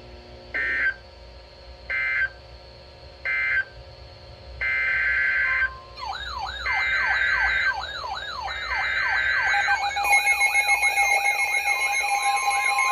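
Emergency Alert System data tones. First three short screeching bursts about 1.3 s apart, which are the end-of-message code closing the previous warning. Then three longer bursts carry the header of the next warning, overlapped from about halfway by a fast repeating rising-and-falling siren-like warble, and near the end the steady two-tone EAS attention signal comes in.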